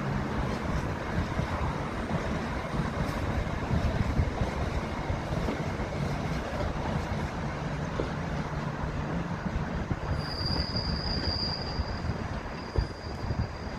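A South Western Railway electric multiple unit running past close by, its wheels rumbling steadily over the rails. A steady high squeal joins about ten seconds in and holds.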